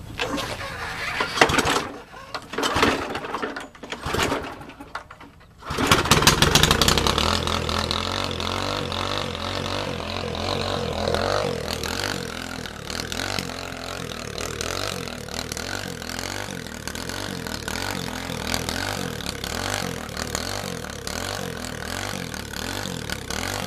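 Small lawn mower engine being pull-started: a few rasping pulls of the starter cord, then it catches about six seconds in and keeps running with an even pulsing beat. It runs with no blade fitted and through an odd exhaust setup, which the owner blames for the way it sounds.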